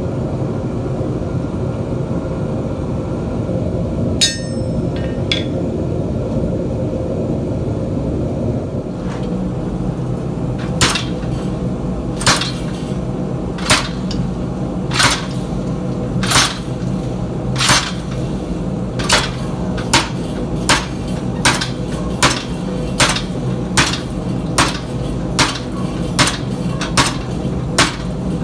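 Hand hammer striking a hot cut chisel to pierce a hot steel bar, over a copper plate that protects the cutting edge. The blows begin about a third of the way in, one every second and a half or so, then quicken to more than one a second, over a steady hum. A single ringing metal clink comes earlier.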